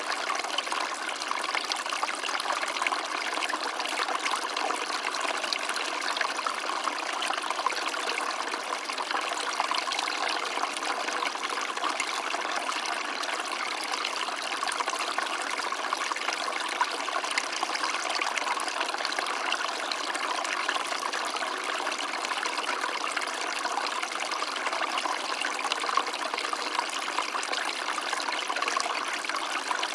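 Small stream of water flowing and trickling steadily.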